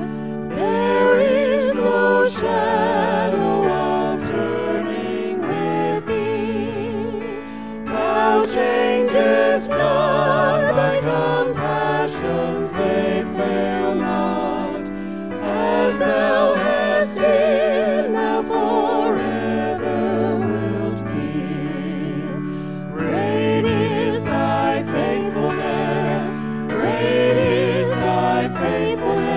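Hymn singing by several voices, some with a clear vibrato, over a steady instrumental accompaniment of held chords.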